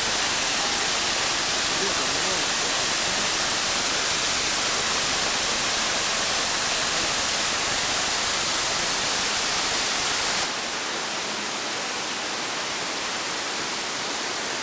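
Small spring waterfall: water spilling in several thin streams over a layered rock ledge and splashing onto stones below, a steady rushing splash. About ten seconds in it drops a little quieter and duller.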